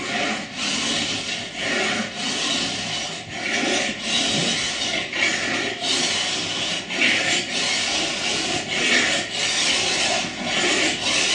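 Bastard file in an edge angle guide rasping along a ski's steel side edge, in repeated even strokes at roughly three every two seconds. This is the first, coarse pass that sets the side-edge angle and takes out irregularities before finer files and diamond stones.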